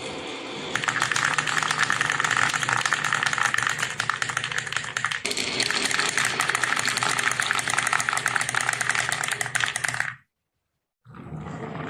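Marbles rolling and clattering down a marble run track: a dense, continuous rattle of clicks that cuts off abruptly about ten seconds in.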